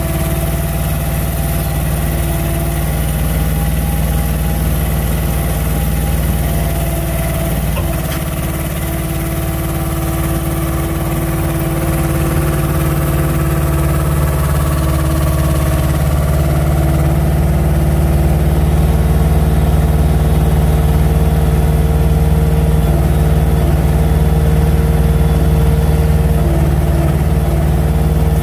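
Truck's diesel engine running steadily to drive the hydraulics of its truck-mounted loader crane while the crane swings a slab grab, with a hydraulic hum whose tones shift as the crane moves. It grows a little louder in the second half.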